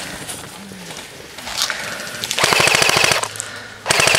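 Airsoft electric gun firing on full auto: two fast bursts, the first about a second long in the second half, the second starting just before the end.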